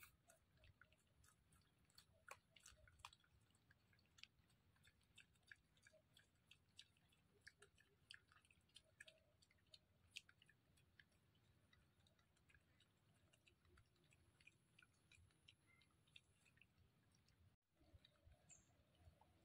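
A wild piglet chewing at bait: faint, irregular small clicks.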